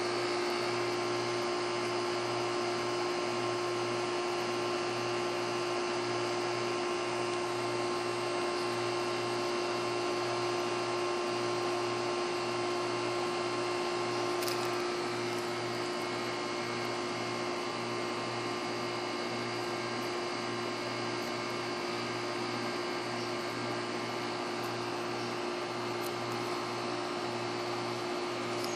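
Steady mechanical hum of a running machine, with one constant tone, dropping slightly in level about halfway through.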